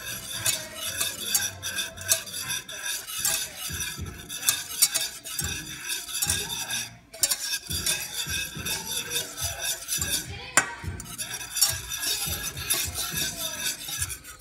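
A wire whisk beats butter and flour into a roux in a stainless steel saucepan, its wires scraping and clinking against the pan in quick, rhythmic strokes. There is a short pause about seven seconds in.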